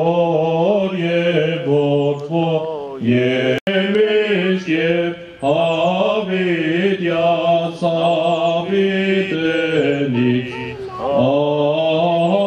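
Armenian liturgical chant sung by a priest: a single male voice holding long notes that bend up and down in pitch.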